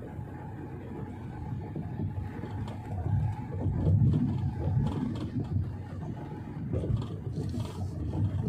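Low rumble of engine and road noise inside the cabin of a Wuling Almaz Turbo SUV while it drives along, swelling and easing from moment to moment.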